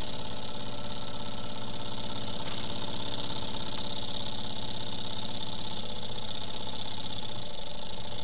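Miniature candle-heated Stirling engine running fast, giving a steady, rapid mechanical clatter from its piston linkage and flywheel.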